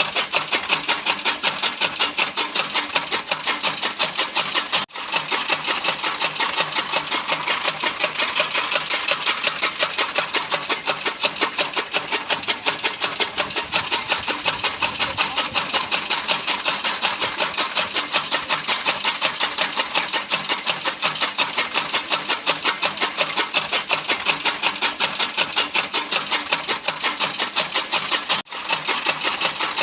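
Fodder cutting machine (chaff cutter) running steadily with a fast, even chopping rhythm of about four beats a second. The sound breaks off for an instant twice.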